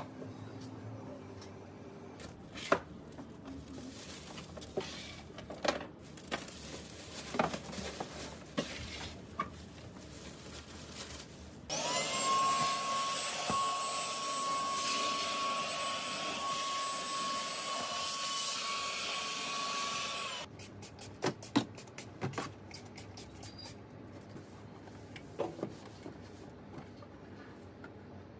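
LifePro cordless handheld vacuum running steadily with a high whine for about eight seconds, sucking up leftover bedding and sand from the cage floor. It switches on abruptly and cuts off sharply. Scattered light knocks and clicks come before and after it.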